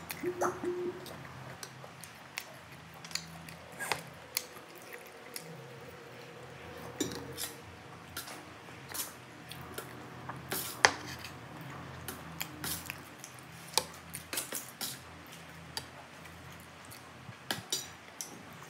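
A metal spoon and fork clink and scrape irregularly against a ceramic plate while someone eats rice. One sharper clink comes a little past halfway. A low hum sounds underneath.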